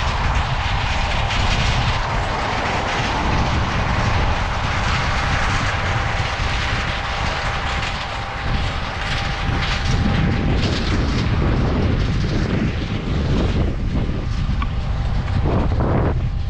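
Large farm machinery running steadily: a heavy diesel engine drone with a steady whine that stops about two-thirds of the way in.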